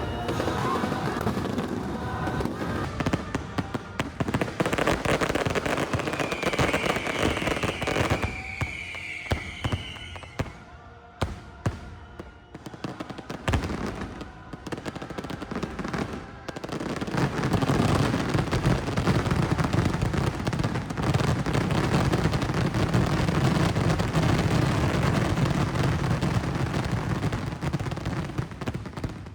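Fireworks show: rapid bangs and crackling, with a high whistle lasting a few seconds about six seconds in. It thins out briefly, then a dense, continuous barrage of bursts runs from about seventeen seconds on.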